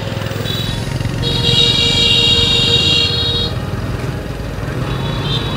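Motorcycle riding slowly through congested street traffic, its engine and road noise a steady low rumble. A shrill electric vehicle horn gives a brief toot about half a second in, then honks steadily for about two seconds.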